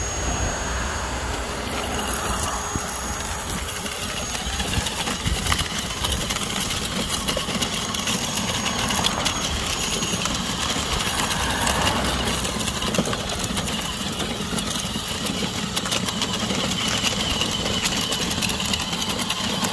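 Small electric motors of a street-sweeper prototype built on a ride-on toy jeep, running steadily with a whir and a rush of air as it rolls along the curb.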